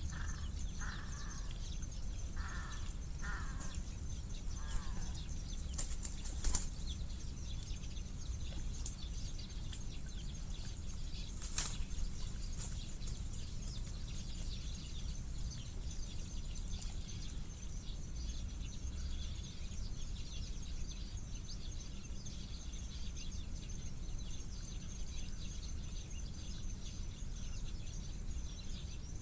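Thick mud sloshing and squelching as a body moves slowly through it, a dense crackle of small wet sounds over a steady low rumble, with a few sharp clicks. A bird gives about five short calls in the first few seconds.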